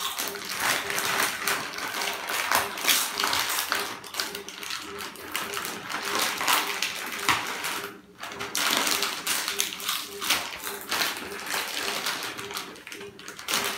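Foil potato-chip packets crinkling and rustling in children's hands, mixed with chips being crunched, an irregular run of rapid crackles with a short lull about eight seconds in.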